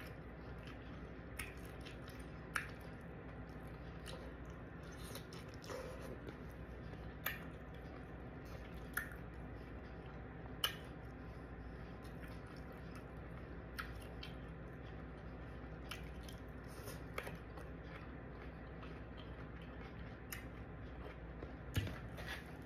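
Close-miked chewing of broccoli and shrimp, with sharp clicks every second or two over a faint steady hum.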